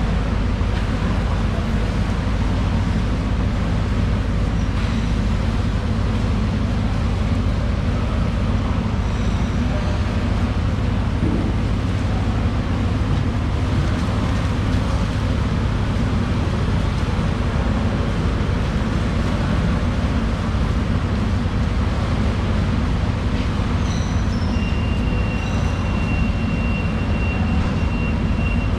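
Steady low mechanical rumble, like engines or machinery running, with a few faint knocks. A thin, steady high-pitched tone comes in near the end.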